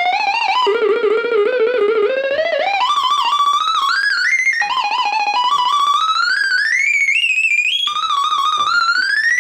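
Yamaha CS-20M analog monophonic synthesizer playing a single warbling lead tone with vibrato. The tone slides steadily upward in pitch, drops back and climbs again, three times over.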